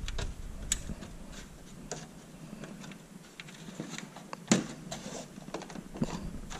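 Light clicks and knocks of a thin client's plastic case being handled, turned over and set down on a wooden table, with one sharper knock about four and a half seconds in.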